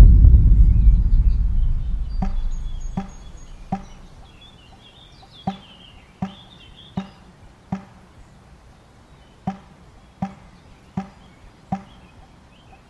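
A deep dramatic boom at the start, fading out over about three seconds, followed by a sparse ticking beat: four evenly spaced ticks, a short pause, then four more, with birds chirping faintly in the background.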